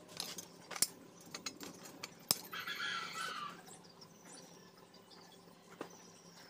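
Light clinks and taps of a steel oil-palm harvesting sickle blade and its plastic handle being handled, with a sharp click a little over two seconds in and a brief scraping rasp just after it.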